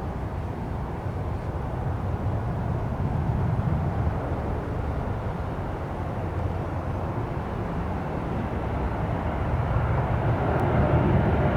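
Jet aircraft engine noise mixed with gusty wind buffeting the microphone, growing louder near the end as a faint engine whine comes in.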